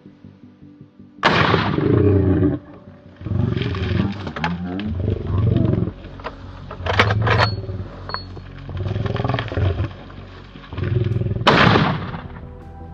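African lion growling in a series of about six deep, rough roars, each about a second long with short gaps between, with a couple of sharp cracks partway through.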